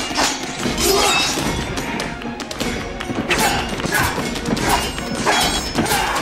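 Sword fight: steel blades clashing again and again with short metallic rings and some thuds, over dramatic film music.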